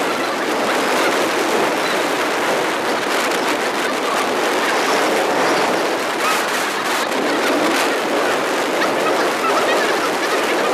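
Steady rushing wind and road noise on the microphone of a camera riding on a moving motorcycle.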